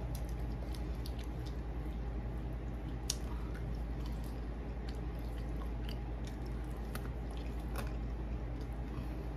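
Chewing on food, a run of small scattered clicks over a steady low hum.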